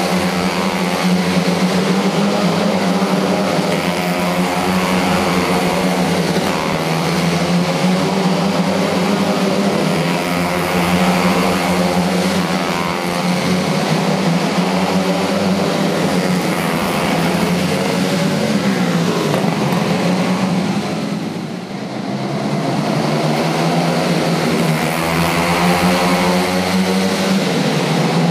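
Several quarter midget race cars running laps, their small engines buzzing together in a dense, overlapping drone that rises and falls in pitch as the cars accelerate and pass. The sound dips briefly about three-quarters of the way through as the pack moves away.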